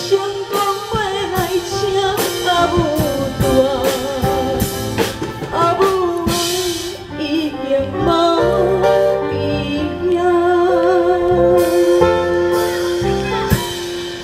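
A woman singing into a microphone over instrumental backing music, her held notes wavering with vibrato.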